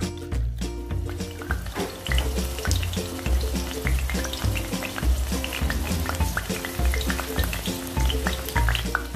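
Food frying in hot oil in a pan, with steady sizzling and many small crackles, under background music with a repeating bass line.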